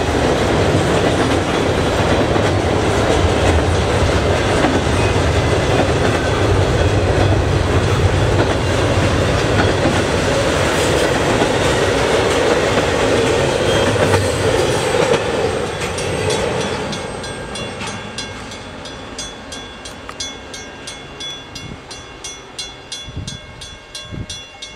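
Double-stack intermodal freight train passing close: the heavy rumble and rattle of container well cars rolling by. About two-thirds of the way in it fades as the cars draw away, leaving a rhythmic clicking of the wheels on the rails.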